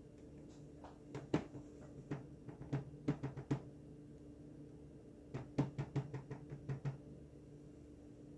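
Light knocks and taps in two irregular bursts, starting about a second in and again past the middle, as a wet acrylic-poured canvas is handled and tilted by hand. A steady low hum runs underneath.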